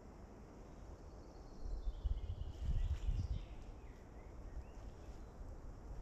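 Spring forest ambience: small birds calling, one with a thin falling whistle about a second and a half in, then a few short chirps, over a low rumble that swells for a couple of seconds in the middle.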